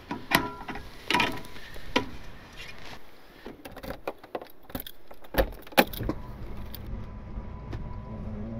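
Metal clicks and clinks of the camper's aluminium entry-step legs being adjusted and set on the ground, then two heavier knocks near the camper door about five and a half seconds in, followed by a steady low hum.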